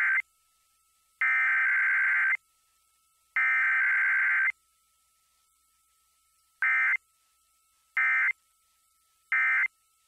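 Emergency Alert System SAME digital data bursts, buzzy warbling data tones. Three bursts of about a second each, about a second apart, then after a short pause three brief bursts, in silence between. This is the header of a Required Weekly Test followed straight away by the end-of-message code, with no attention tone or voice message.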